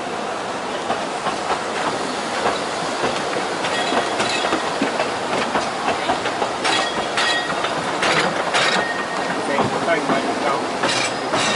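Narrow-gauge steam train carriages running on the track: a steady rumble of wheels with clicks over the rail joints. Short high wheel squeals come several times in the second half.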